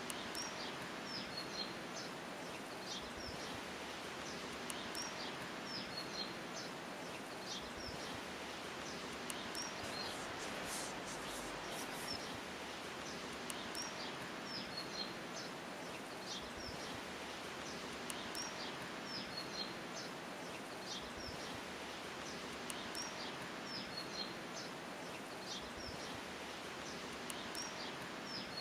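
Small birds chirping over a steady outdoor background hiss: short, high chirps come every second or so throughout.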